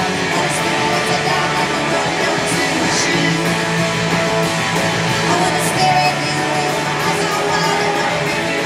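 Live rock band playing a song at full volume: electric guitars, bass and drums.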